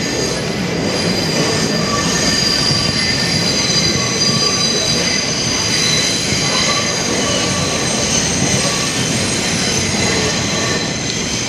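R142 subway train running through the tunnel, heard from inside the car: a loud steady rumble of wheels on rail with high-pitched squealing held throughout.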